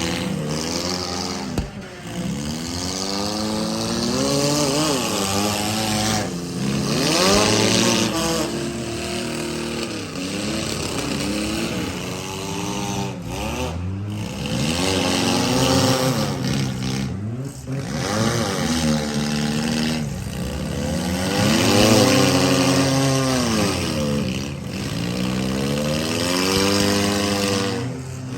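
Several compact and midsize car engines revving hard over and over, their pitch rising and falling as the cars accelerate and back up in a demolition derby, with one sharp bang of a hit about a second and a half in.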